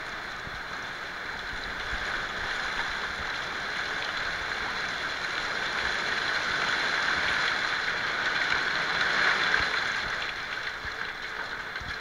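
A heavy hailstorm with rain, driven by strong gusty wind, pelting the yard and roofs: a dense, steady hiss that swells in the middle and eases toward the end.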